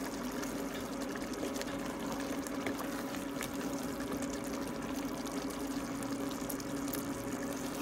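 Wooden spoon stirring and lifting a thick pot of pondu, cassava-leaf stew, giving soft wet squelches and small ticks, over a steady low hum.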